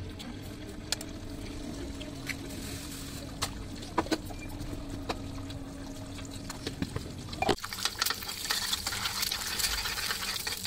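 A few sharp taps as eggs are broken over a frying pan, over a steady low hum. About three-quarters of the way in, eggs start sizzling and crackling in hot oil as a spoon stirs them.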